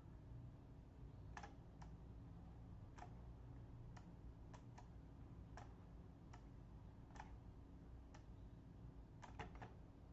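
Computer mouse clicking: about a dozen faint, sharp clicks at irregular intervals, with a quick cluster of three near the end, over a low steady hum.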